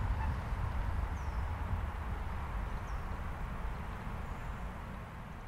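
Akita Shinkansen Komachi train running away along the rails, a steady low rumble that fades slowly. A few faint high chirps sound over it.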